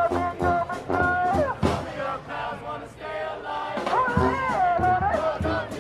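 Brass-and-percussion street marching band playing, horns carrying a bending melody over a steady drum beat.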